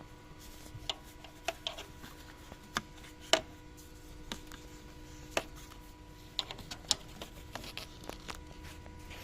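Irregular sharp clicks and light knocks, about a dozen, the loudest about three seconds in, over a faint steady hum.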